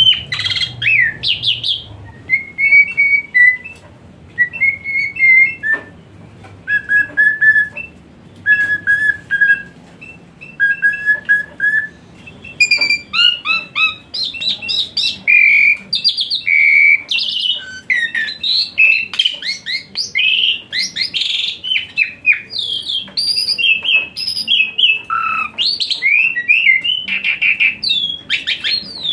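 Asian pied starling (jalak suren) singing. First come short, clear whistled phrases repeated about every second and a half, then from about twelve seconds in a dense, rapid run of varied chirps and whistles.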